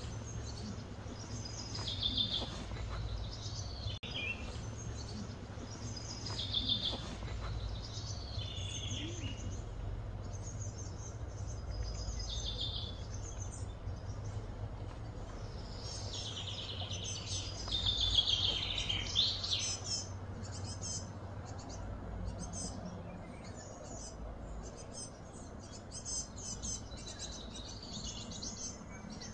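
Wild birds calling, short chirping phrases that repeat every couple of seconds and bunch into a busier run about two-thirds of the way through, over a steady low hum.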